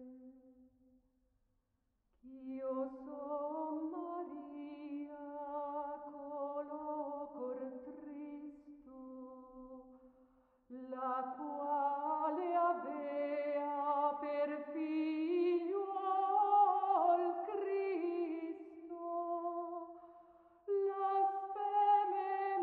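Background music: a solo voice singing unaccompanied, in slow held phrases with vibrato. It breaks off about a second in and then sings on, with brief pauses between phrases.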